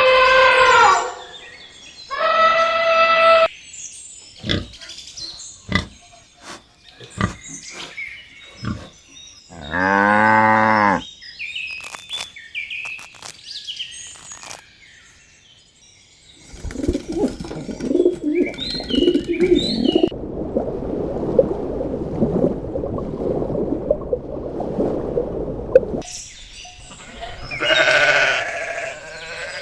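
A series of different animal calls, one after another, farm animals among them. Short pitched calls open it, then a string of clicks and one long call about ten seconds in. A long rough stretch runs from about sixteen to twenty-six seconds, and another call comes near the end.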